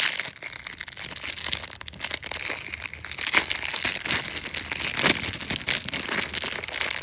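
Plastic packaging of fishing tackle crinkling and crackling as it is handled, a continuous run of rustles.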